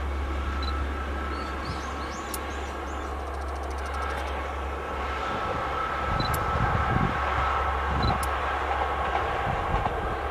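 Kyoto Tango Railway "Tango no Umi" diesel express train approaching, its engine sound slowly growing louder, with irregular low buffeting from about halfway through.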